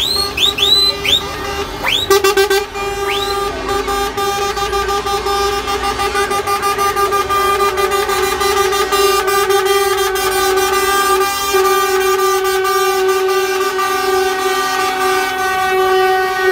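Lorry air horn sounding one long steady blast, starting about two seconds in and holding to the end. In the first few seconds a quick string of short, high whistling chirps plays over it.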